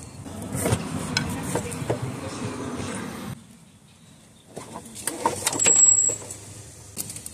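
Metal hand tools and bolts clinking and rattling during engine disassembly, in scattered sharp clicks. About halfway through there is an abrupt quieter gap of about a second before the clinking resumes.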